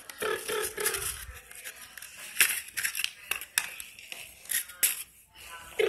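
Handling noise: irregular sharp clicks and scuffs as a plastic toy figure and a cardboard tube are moved about on a concrete floor.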